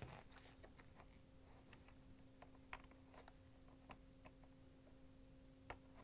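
Near silence with a few faint, sharp plastic clicks and handling sounds as a wiring harness connector is fitted onto a dishwasher's control board, over a faint steady hum.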